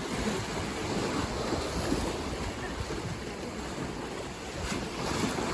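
Ocean waves surging and washing on a shore, a continuous rush of surf that eases a little in the middle and swells again near the end.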